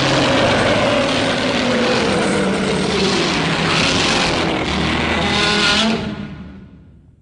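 Film sound effect from Godzilla (1984): a loud, steady rushing noise with a faint tone that slowly falls in pitch, fading out over the last second or so.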